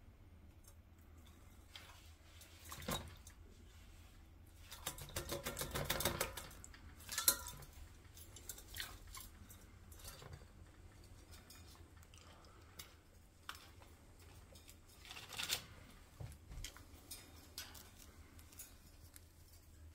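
A kakariki bathing in a stainless steel water bowl in its cage: scattered splashes and wing flutters, the biggest burst about five to six seconds in and another about fifteen seconds in. Light clicks and rattles of its claws on the wire cage bars come between them.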